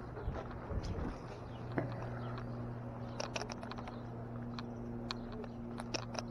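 Footsteps and scattered light clicks on stone paving over a steady low hum.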